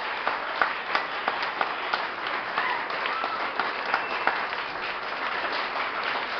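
Audience applauding at the end of a stage act: a dense patter of many hands clapping, with a brief call from someone in the crowd about halfway through.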